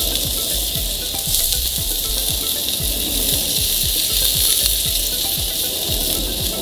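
Ribeye steaks searing on grill grates over a charcoal fire: a steady fat sizzle at the high-heat finishing sear of a reverse sear, with a low, evenly pulsing rumble underneath.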